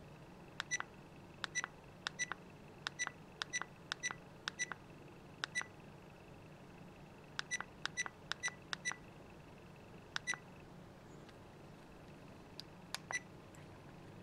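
Airon ProCam 4K action camera's key beeper giving short high beeps, one per tap on the touchscreen menu arrows, as the exposure value is stepped up. The beeps come in quick runs, often in pairs, with pauses about six seconds and eleven seconds in.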